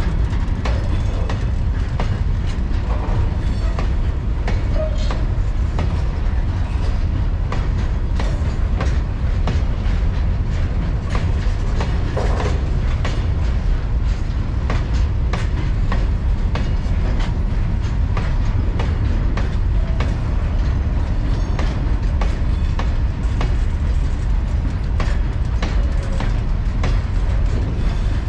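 Freight train wagons running on the track: a steady heavy rumble with a continuous clatter of wheel clicks over the rail joints.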